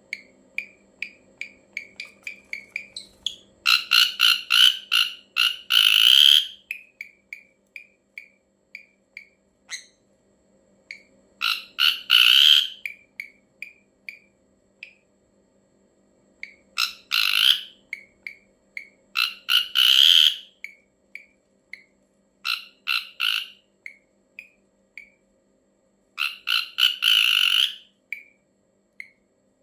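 Ashy drongo calling: a run of short, clipped notes repeated several times a second, broken every few seconds by bursts of harsh, rapid chattering calls lasting one to three seconds. A faint steady hum lies underneath.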